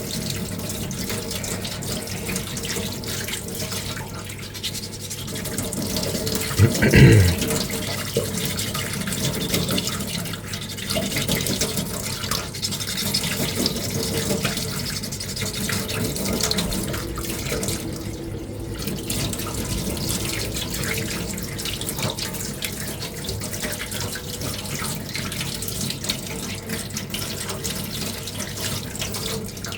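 Fine-grit sandpaper rubbed by hand over a small putty-primed armour piece, making a continuous scratchy hiss of short strokes. A short low bump comes about seven seconds in.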